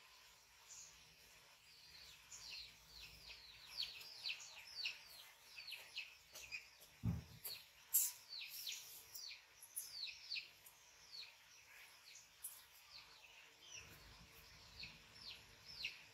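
Small birds chirping faintly, a long run of short, quickly falling chirps a few times a second, with one soft low thump about seven seconds in.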